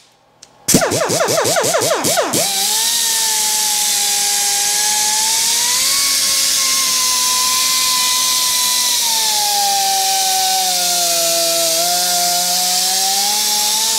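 Air-powered die grinder with a flap wheel grinding the inside of a cast milling-machine riser block, to take down a tight raised lip. It is blipped in short spin-ups for about a second and a half, then held running as a steady whine, its pitch dipping about two-thirds of the way through and rising again near the end.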